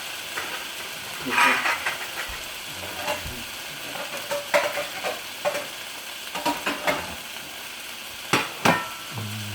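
Stir-fried bitter melon sizzling in a hot pan while a utensil scrapes and knocks against the pan, scooping the food out, in irregular strokes; the loudest come about a second and a half in and twice near the end.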